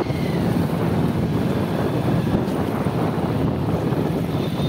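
Wind buffeting the microphone of a phone held while riding on a moving motorbike: a steady low rumble.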